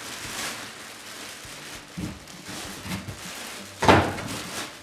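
Clear plastic bag crinkling and rustling as it is pulled off a large 18-inch subwoofer, in uneven swells, with one sharp, louder burst about four seconds in.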